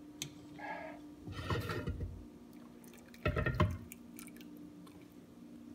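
Blanched noodles scooped out of a pot of hot water with a wire spider strainer: water sloshes and drips back into the pot, with a few light clicks of the metal strainer. The loudest splash comes about three seconds in, as the noodles are lifted clear. A steady low hum runs underneath.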